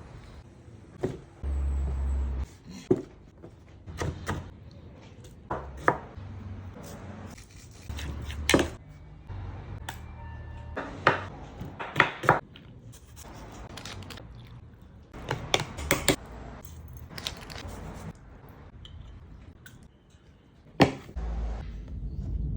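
Kitchen knife striking a cutting board in irregular chops, with single sharp knocks scattered through and one loud knock near the end.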